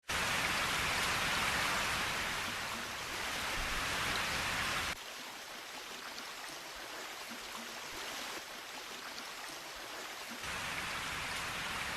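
Steady hiss of rain. It drops abruptly to a quieter, thinner layer about five seconds in and comes back fuller near the end.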